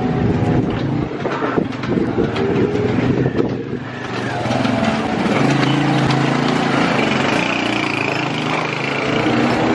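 Small motor scooter engine running while a box is loaded onto it.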